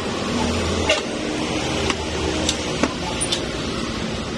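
A few short, sharp clicks and taps from hands working wiring and plastic trim behind a minivan's dashboard, over a steady background rumble.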